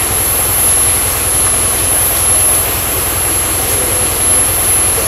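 Engine of an off-road 4x4 running steadily at low speed, a deep rumble, with a constant high-pitched whine over it.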